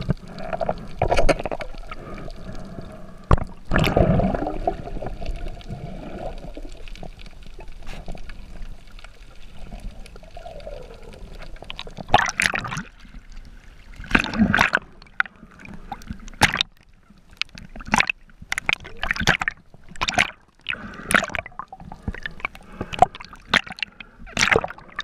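Water sloshing and gurgling around a camera held underwater, with low surges early on, then a run of short, sharp splashes over the second half as the camera moves near and through the surface.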